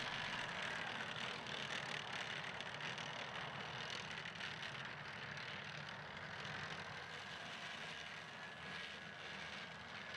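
Rakushka (BTR-MDM) tracked armoured personnel carrier's diesel engine running, a steady broad noise with a faint high whine.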